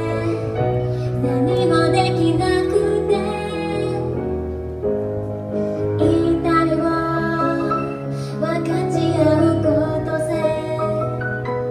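Grand piano played live, with a woman singing over it into a microphone, recorded on a phone among the audience.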